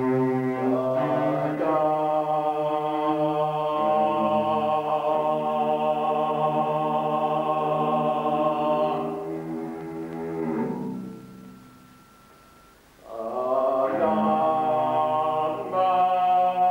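Long, held, chant-like sung notes in a raga style, sliding from one pitch to the next. The voice drops away about eleven seconds in and comes back strongly about two seconds later.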